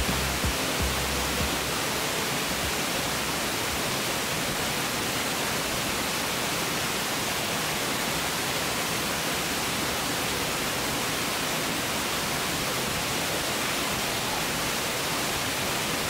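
Steady roar and hiss of several waterfalls pouring into a shallow rock pool, with a few low thumps in the first second and a half.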